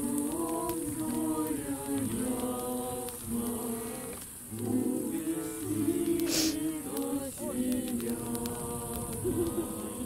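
A group of men and women singing a religious song together around a campfire, to the strummed accompaniment of an acoustic guitar. A brief sharp noise cuts through about six seconds in.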